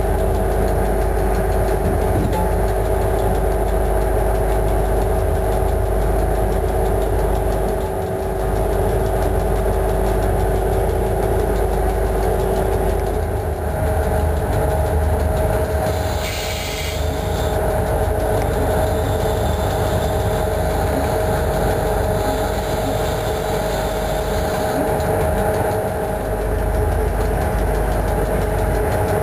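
A train running along the track, heard from its front cab: a steady, loud running drone with a couple of steady humming tones, one of which drops out about halfway through. A short hiss comes about 16 seconds in, followed by a fainter high hiss lasting several seconds.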